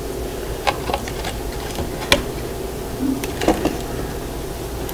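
Cooking at a fire-burning stove: a steady low rumble with about half a dozen short, sharp clicks and knocks scattered through it.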